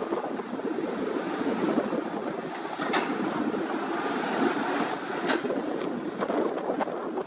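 Caterpillar 320-series hydraulic excavators working, a steady diesel and hydraulic drone as the bucket digs and dumps soil, with two sharp knocks about three and five seconds in.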